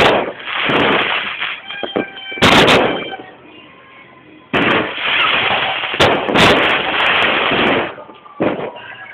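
Fireworks going off: loud bangs, one at the start and another about two and a half seconds in, then a long spell of blasts and cracks from about halfway to near the end, with one more bang just before the end.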